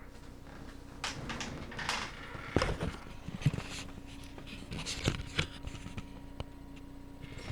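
Rustling and handling noises with scattered sharp taps and knocks, over a steady low hum.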